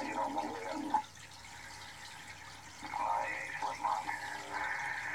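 Upper-sideband signals around 27.5 MHz from a CB radio receiver's speaker: garbled, voice-like transmissions that drop to a quieter hiss about a second in and come back about three seconds in.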